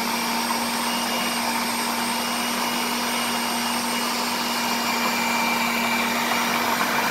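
Electric food processor running continuously, its motor giving a steady hum as it grinds a wet coriander and mint chutney paste.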